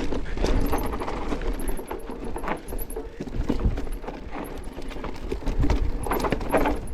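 Mountain bike rattling down a rough dirt trail: chain slap, suspension and frame knocks and tyres on dirt make rapid, irregular clatter over a steady low wind rumble on the camera microphone.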